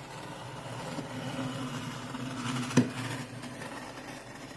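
A large cardboard box being handled and shifted, with one sharp knock about three seconds in, over a low steady hum.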